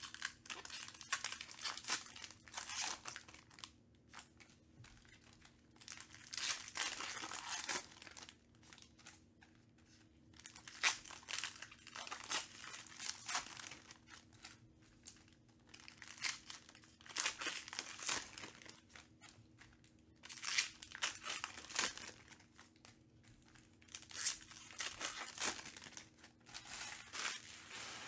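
Foil wrappers of 2021 Panini Prizm Baseball card packs being torn open and crinkled by hand, in repeated bursts of crackling and tearing with short pauses between.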